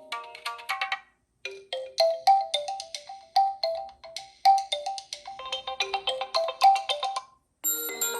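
Oppo A17 stock ringtones playing back to back. The last notes of one ringtone end about a second in, then a short tune of quick, bright notes plays for about six seconds, and after a brief gap near the end the next ringtone begins.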